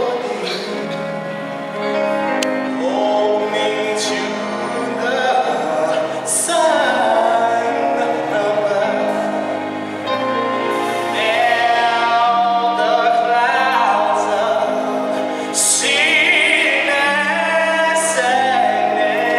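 Gospel choir singing held chords with a male soloist's voice over them. The notes waver with vibrato, and the music swells and eases without pause.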